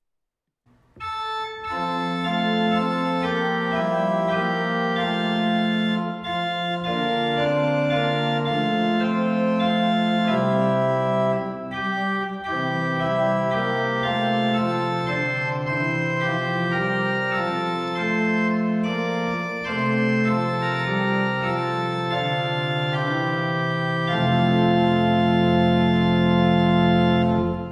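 Organ music: slow sustained chords that change every second or two, starting about a second in and ending on a long held chord that cuts off abruptly.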